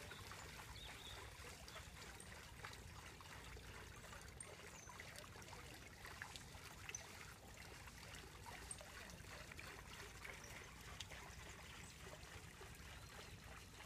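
Faint trickling and splashing of water falling from a pipe-fed wooden water wheel into a lake, with small scattered drips.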